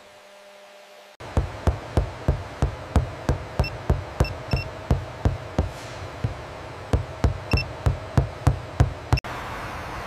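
Handheld tap-test probe knocking on a carbon-fibre composite panel, about three even taps a second for some eight seconds, checking the laminate for hidden flaws. A steady tone runs under the taps, short electronic beeps from the tester sound a few times, and a steady hum takes over near the end.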